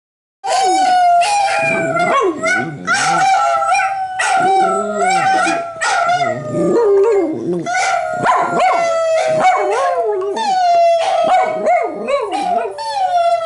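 A dachshund howling in long, drawn-out notes that sag slowly in pitch, with short yips mixed in; the howling starts suddenly about half a second in and carries on without a break.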